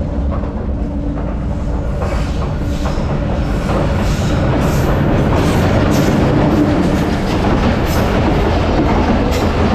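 Diesel-hauled express train passing at high speed. A rush of wheel and engine noise builds over the first few seconds, then holds as a run of wheel clatter over the rail joints.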